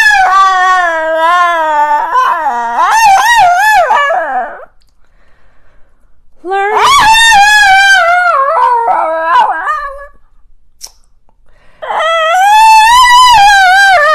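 Small dog howling: three long, wavering, high-pitched howls separated by pauses of about two seconds.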